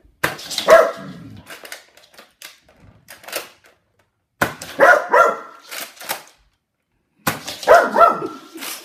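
A dog barking in three short bursts: about a second in, around the middle, and near the end.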